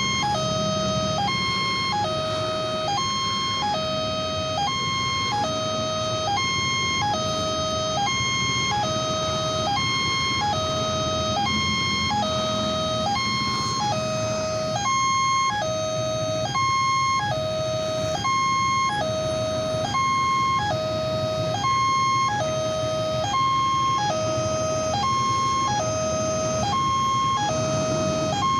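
Railway level-crossing warning siren sounding continuously, a repeating two-note pattern that alternates about once a second.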